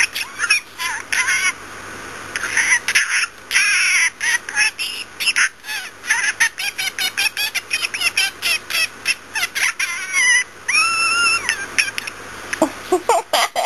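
Budgie chattering and warbling: a fast run of clicks and chirps, with one steady held note, like a beep, a little before the end.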